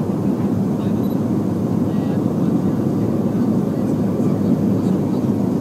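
Steady low drone inside the cabin of a BAe 146 airliner on approach to landing: its four Lycoming ALF502 turbofan engines and the rushing airflow.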